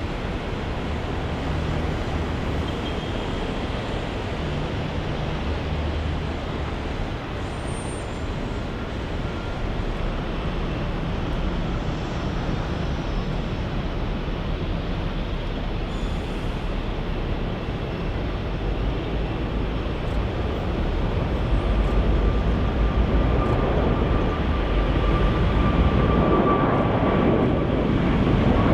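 Jet airliner engines, a steady rumble and rush that grows louder about twenty seconds in, with a faint whine near the end.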